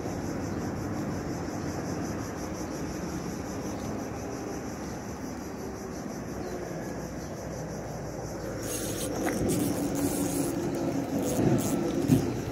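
Steady outdoor background with a high, insect-like buzz. About two-thirds in, irregular clicks and rustles of fishing-tackle handling begin as a fish is hooked on an ultralight spinning rod and reel, with one sharp knock near the end.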